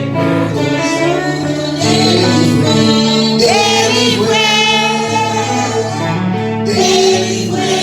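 Gospel worship song: singing voices with instrumental accompaniment, held and gliding sung notes over a steady low bass.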